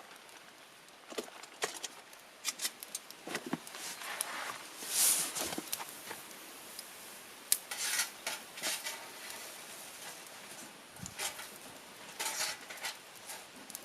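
Wood campfire crackling, with irregular sharp snaps and pops and a short hissing flare about five seconds in.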